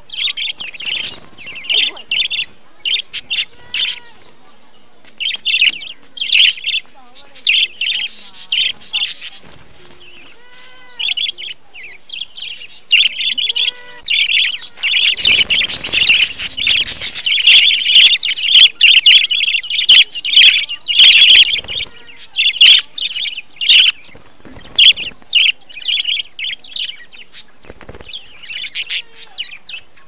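A flock of budgerigars chirping in quick, short calls. The chatter thickens into a dense, louder stretch about halfway through, then thins out again.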